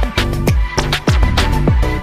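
Background music: an upbeat dance track with a steady beat of deep kick drums that drop in pitch.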